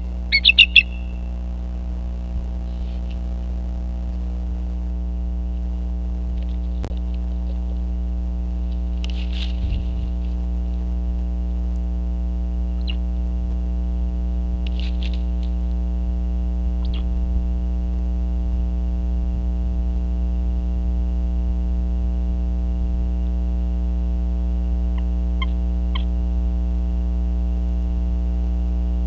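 Steady electrical hum with a thin high whine from the nest camera's audio. A few short, faint bird calls break in about a third of the way through, midway and near the end.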